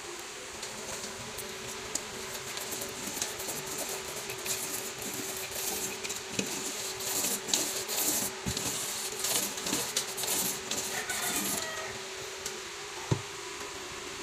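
Paint roller loaded with latex flat primer rolling over a surface, making a sticky crackling hiss through the middle stretch, over a steady hum. A single sharp knock near the end.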